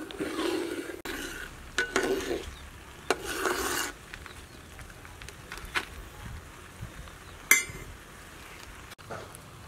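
Metal spatula stirring and scraping a milky liquid in a metal wok: three scraping strokes in the first four seconds, then quieter, with a few sharp clicks of metal on metal, the loudest about seven and a half seconds in.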